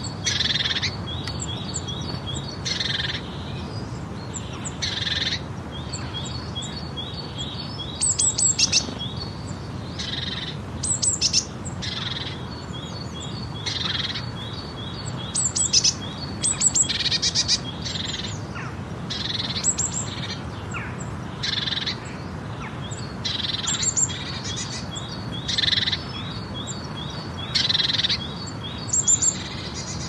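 Nature soundscape of birds chirping and calling every second or two, some calls sweeping high, with rapid trills of short repeated notes, over a steady low background hiss.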